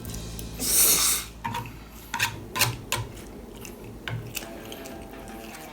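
Close-up eating sounds from a bowl of instant noodles: a loud slurp about half a second in, then a string of short clicks and smacks from chewing and utensils.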